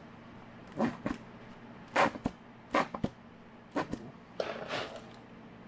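A series of sharp knocks and clicks, about eight spread over a few seconds, with a short scraping rustle near the end; handling noise, with no polisher running.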